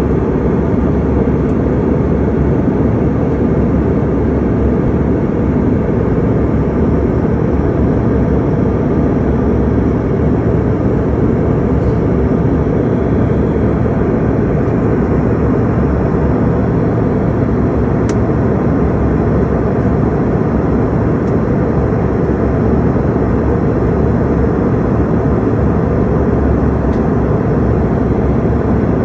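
Steady, unchanging low roar of a jet aircraft, heavy in the low end, with a faint click about two-thirds of the way through.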